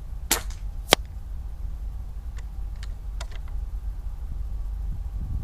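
A .22 Umarex Gauntlet PCP air rifle fires once about a third of a second in, followed by a sharper, louder crack just under a second in. Three lighter clicks follow a couple of seconds later, over a steady low rumble of wind on the microphone.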